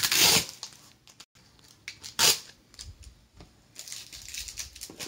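Paper and packaging being handled, rustling and crinkling. The loudest rustle comes at the start, a short sharp one about two seconds in, and a longer, softer stretch of rustling about four seconds in.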